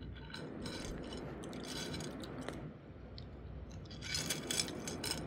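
Crisp fried raw jackfruit wafers rustling and clicking against each other and the plate as fingers stir and pick through them. The small dry crackles get denser and louder about four seconds in.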